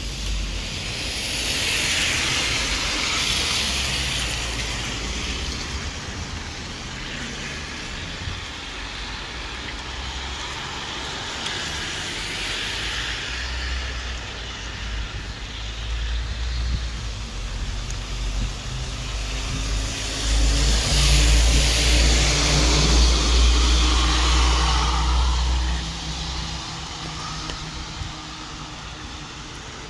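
Cars passing on a wet street, their tyres hissing on the road. Two pass-bys swell and fade, the louder one about twenty seconds in, with a deep rumble under it.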